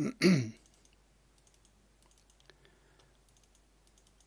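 Faint, irregular clicks of a computer mouse, edges being picked one after another in 3D modelling software.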